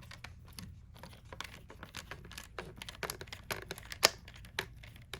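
Irregular small clicks and taps of hands working small plastic and carbon-fibre parts on a BMW steering wheel, fitting and tightening the last trim piece, with one sharper click about four seconds in.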